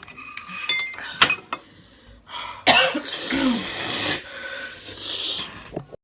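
A person coughing hard and wheezing, a throat fit set off by the chili heat of spicy noodles. It comes in two long bouts, the first about two and a half seconds in, with a few sharp clicks in the first second and a half.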